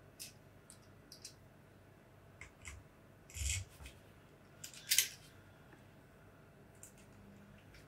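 Small parts of a Tokyo Marui MK23 airsoft pistol being handled as its large barrel screw is set in place: scattered light clicks and two short scrapes, the louder one about five seconds in.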